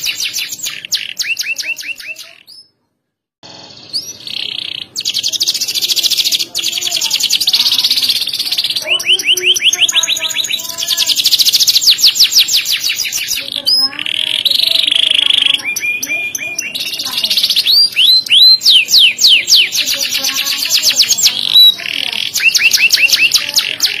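Domestic canary singing a long, loud song of rapid high trills and rolls, the phrases changing pitch and speed, with one short break about three seconds in.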